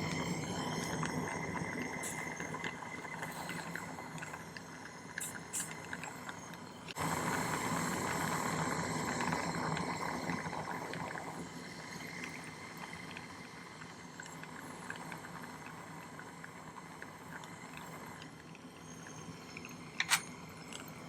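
Soldering torch flame hissing steadily while sterling silver links are soldered with hard solder. The hiss becomes suddenly louder about seven seconds in and gradually settles lower, with a few sharp metallic clicks near the end.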